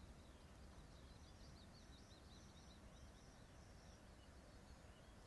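Near silence: faint birds chirping over low outdoor background noise.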